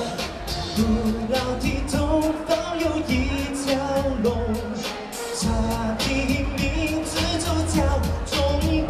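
Chinese pop song performed live: male voices singing into microphones over a backing track with a steady beat, played through stage PA speakers.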